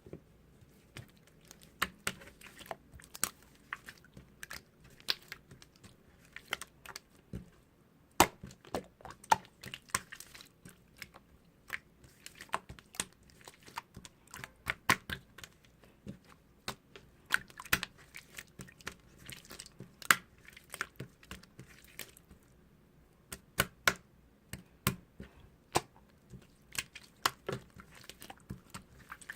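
Slime being squeezed, stretched and poked by hand, giving a stream of irregular sharp clicks and pops.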